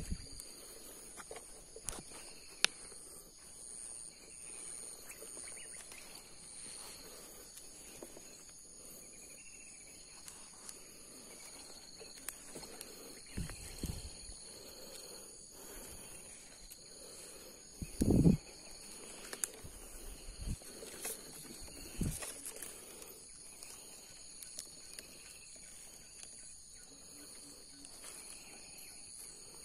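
Forest insects droning steadily in several high pitches. A few low thumps come about halfway through, the loudest about 18 seconds in, along with some sharp clicks.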